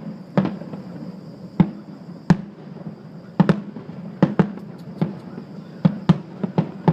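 Fireworks going off: about a dozen sharp bangs at irregular intervals, some in quick pairs.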